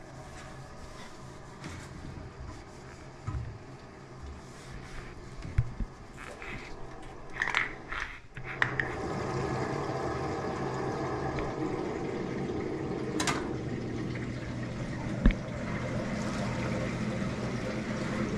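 Water rushing through household plumbing after a filter change, likely as the supply is turned back on. It starts suddenly about halfway through and carries on as a steady rush with a faint hum. Before it come a few knocks and rubbing sounds of handling, and a sharp click comes a few seconds before the end.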